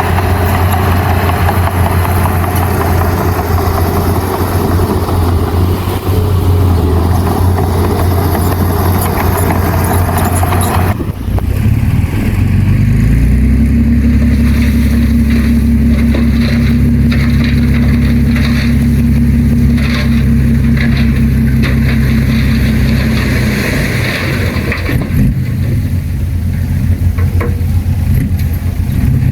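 Diesel engines of heavy earthmoving machinery running under load. About eleven seconds in, the rough, noisy engine sound changes abruptly to a steadier engine note that rises and holds, then goes rougher again near the end.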